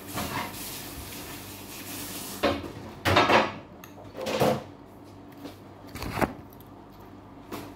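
Metal spoon scraping and clinking against a plate of rice as food is scooped up, in several short strokes, the loudest about three seconds in and a sharp click about six seconds in.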